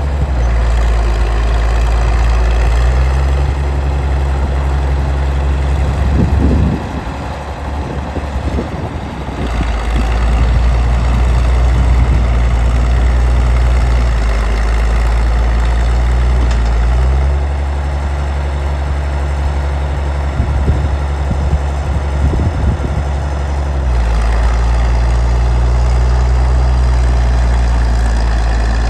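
The diesel engine of a 1952 Caterpillar D6-9U bulldozer running as it works against a tree. Its note shifts up and down several times as the load and throttle change. Around a quarter of the way in, the level dips for a few seconds and there is some irregular clatter.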